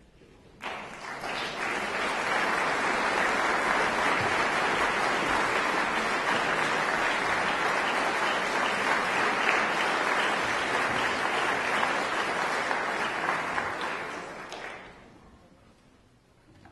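Audience applauding, starting suddenly about half a second in, holding steady, then dying away near the end.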